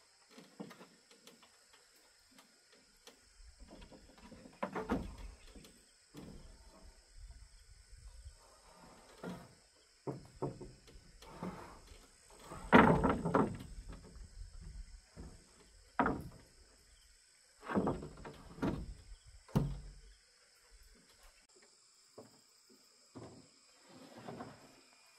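Wooden roof boards knocking and sliding against a timber frame as they are handled and set in place: irregular thuds and scrapes, the loudest a scraping clatter about 13 seconds in. A steady high insect buzz runs underneath.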